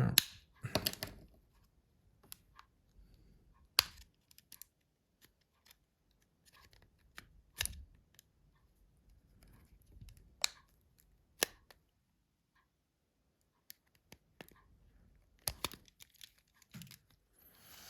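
Scattered sharp plastic clicks and short scrapes, with quiet gaps between, from a Nokia C2-06's housing and keypad being handled and worked at a stuck corner.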